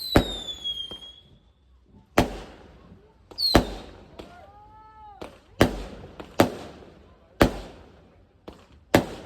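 Fireworks going off: about ten sharp bangs at irregular intervals, roughly one a second, some carrying a short high whistle that falls in pitch. Near the middle a short pitched call rises and falls between the bangs.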